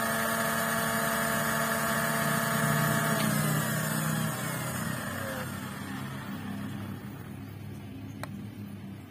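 Cordless grass trimmer's electric motor running at about 13,500 rpm on a direct 24.7-volt battery feed, a steady high whine. About three seconds in it is switched off and the whine falls in pitch as the cutting head spins down and fades. A single sharp click near the end.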